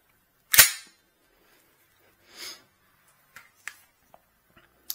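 Slide of a blank-firing Glock 17 reproduction snapping forward with one sharp clack about half a second in, after the empty chamber has been shown. A soft breath follows, then a few light handling clicks as the pistol is turned in the hands.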